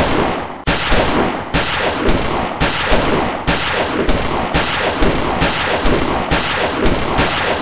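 Dubbed-in gunfire sound effect: a dense, continuous volley of shots with a heavier blast about every half second to a second.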